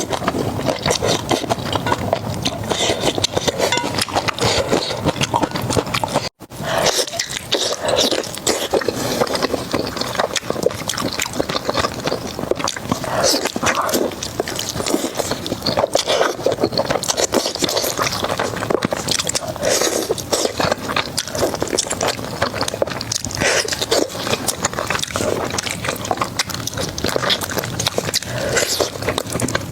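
Close-miked eating of crispy fried food: continuous crunching, biting and chewing with wet mouth sounds. The sound drops out briefly about six seconds in.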